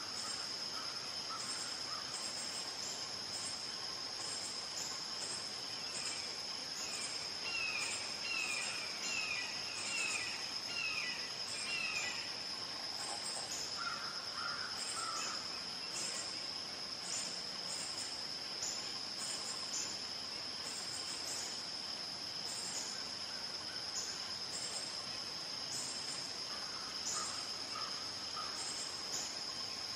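A series of about eight short, descending calls, spaced under a second apart in the middle: the calling of a red-shouldered hawk. A steady, shrill insect chorus with pulsing chirps carries on underneath throughout, and fainter, lower calls come in short groups a few times.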